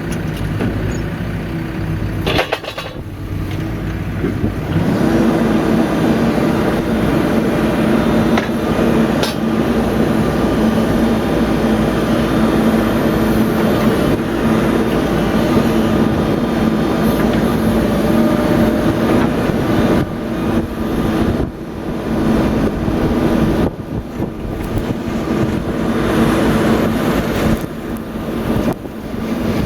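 Caterpillar 420F backhoe loader's diesel engine running under load while digging, rising in pitch and loudness about five seconds in and easing off briefly a few times later. A couple of short sharp knocks stand out early on.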